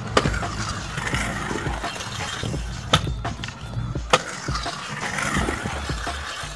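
Stunt scooter's hard wheels rolling around a concrete skatepark bowl, the rolling noise swelling and fading as it carves, with a few sharp knocks as the scooter strikes the concrete.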